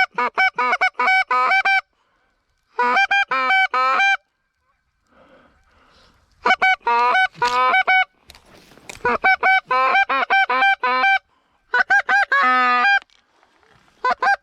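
Goose calls blown in rapid runs of Canada goose honks and clucks, five bursts of several quick notes each with short pauses between them, calling to a single passing goose.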